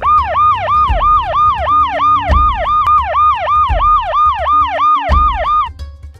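Police car siren sound effect in a rapid yelp, rising and falling about three to four times a second over background music with a low beat; it cuts off shortly before the end.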